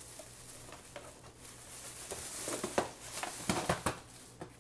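Rustling and handling of grocery packaging, with a run of light knocks and clicks in the second half as items are moved, over a faint steady low hum.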